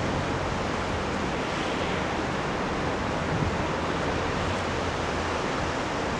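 Swollen river water rushing fast under a bridge after flooding, a steady, even rush of turbulent flow.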